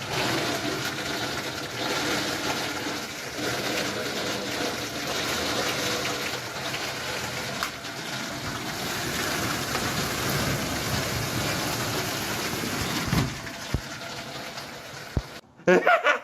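Heavy rain pouring down in a steady, dense hiss, which stops abruptly near the end.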